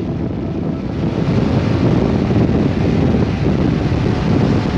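Wind rushing over the microphone of a Honda Transalp 700 motorcycle riding at motorway speed, a dense steady noise that drowns out the engine; it grows a little louder about a second in.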